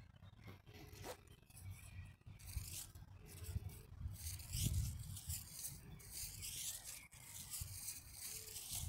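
Outdoor field ambience: uneven low wind rumble on the microphone, with a repeated high, scratchy rasping that starts about two seconds in and continues.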